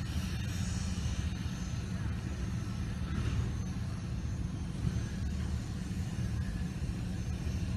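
Steam locomotive working a passenger train, heard as a steady low rumble without distinct chuffs.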